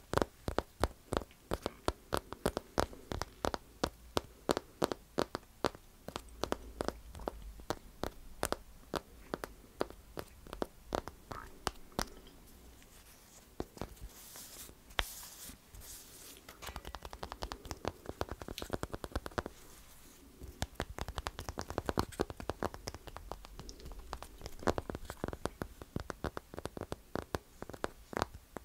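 Close-miked eating sounds: cake being chewed with many quick, sharp wet mouth clicks. A brief brighter rustle or scrape comes about halfway through.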